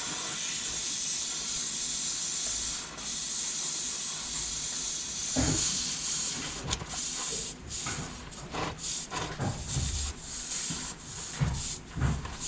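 Gas or air under pressure hissing steadily for about six seconds, then in short broken bursts, with a few low knocks.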